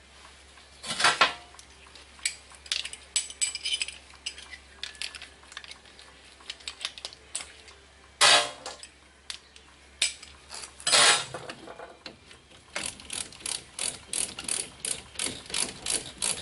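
Hand ratchet with a 14 mm socket clicking as brake caliper bolts are backed out, broken by a few sharp metal clanks of tools. Near the end comes a steady run of ratchet clicks, about four or five a second.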